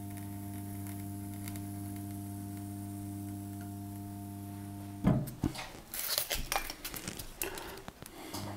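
Steady electrical hum of a Proxxon hot-wire foam cutter while it is switched on. About five seconds in the hum cuts off suddenly, followed by scratchy crackling and rustling of XPS foam strips being peeled and handled. The hum returns near the end.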